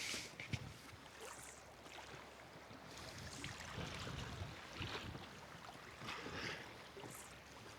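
Faint sea and wind noise around a small open boat: water washing against the hull and wind, with soft hissing swells now and then and a few light clicks.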